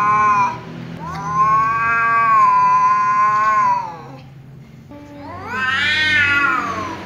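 Black-and-white tom cat yowling angrily at another cat. The end of one yowl, then a long drawn-out yowl of about three seconds, and near the end a second yowl that rises and falls.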